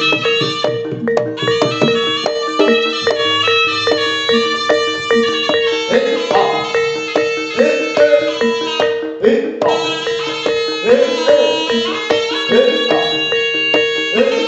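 Live jaranan ensemble music: a reedy melody over a steady held drone, driven by a fast, even beat of drums and struck gongs.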